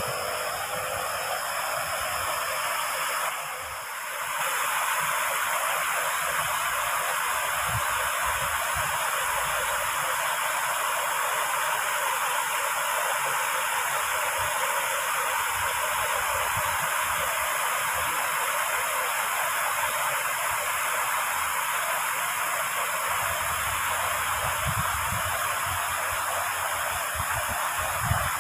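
Floodwater rushing through a culvert channel in a steady hiss, briefly quieter about three seconds in. Irregular gusts of wind buffet the microphone.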